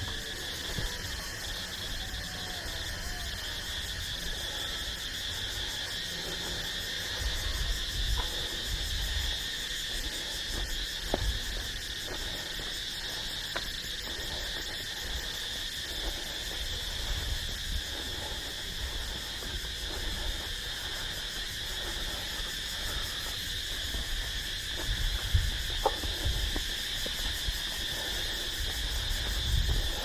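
Steady chorus of insects at dusk, a continuous high buzzing and trilling in several pitches, with irregular low rumbles underneath.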